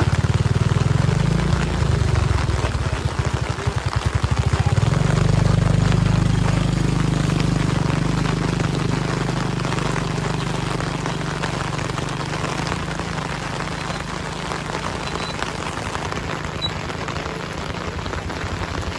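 Heavy rain falling steadily, with a vehicle's engine running low and loud in the first half, loudest about six seconds in and fading away after.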